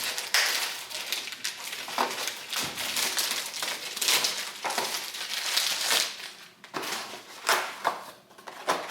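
Packaging rustling and crinkling as it is handled and unwrapped, uneven throughout with many small sharp crackles.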